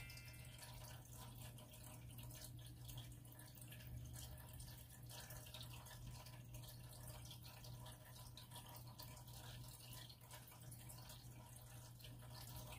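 Near silence: a faint, steady trickle of water from an aquarium filter over a low, steady hum.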